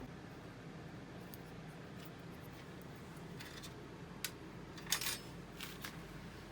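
A few light metallic clinks and taps, as of small metal parts being handled or set down, the loudest cluster about five seconds in, over a steady low hum.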